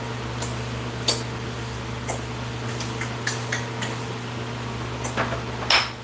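Scattered light clicks and clinks of small hard objects being handled, over a steady low hum, with a short scraping rustle near the end.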